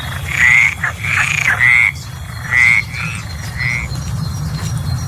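Frog croaking: about six short, rattling calls in quick succession that stop about four seconds in, over a steady low background.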